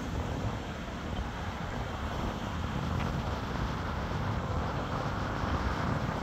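Steady outdoor background rumble with wind noise on the microphone, growing slowly louder.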